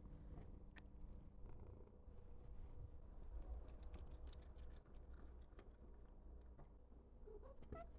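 A domestic cat purring softly, a steady low rumble, with a few faint small clicks over it.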